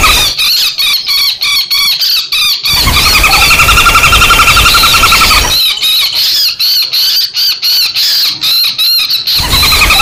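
Common flameback woodpecker calls played as a looped bird-lure recording: a fast rattling trill that gives way twice to runs of separate sharp, harsh calls at about three to four a second, the fighting and screaming calls used to draw wild woodpeckers in.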